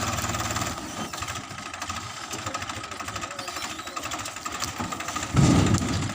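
Combine harvester engine running with a steady pulsing beat, which drops in level about a second in. A brief, louder low rumble comes near the end.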